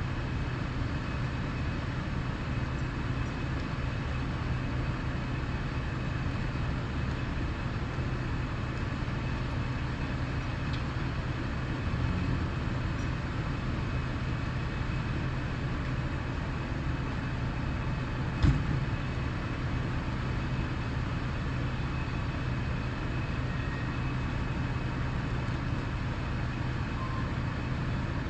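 Fire engine's diesel engine running with a steady low rumble. One sharp bang about two-thirds of the way through.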